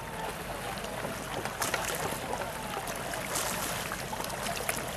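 Kayak paddle strokes splashing in the water, a few sharper splashes among a steady wash of water and outdoor noise, with faint distant voices.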